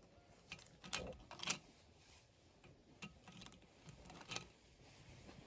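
Cards of a desk flip calendar being flipped over on their metal rings: a few faint separate clicks and flaps, the loudest about a second and a second and a half in.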